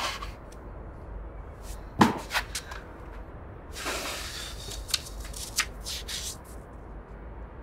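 Sheets of paper rustling and being handled, with a sharp click about two seconds in and a run of light taps and clicks through the middle.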